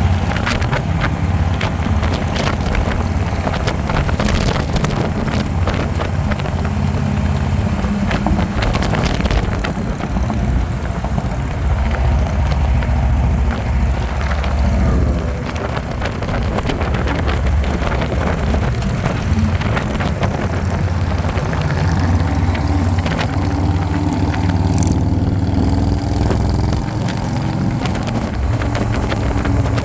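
Harley-Davidson motorcycle cruising on the road: a steady engine rumble whose pitch shifts a little at times, with wind rushing over the microphone.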